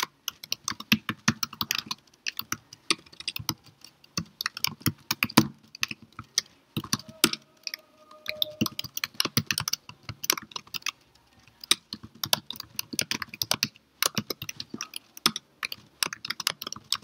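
Typing on a computer keyboard: quick runs of keystroke clicks with brief pauses between them.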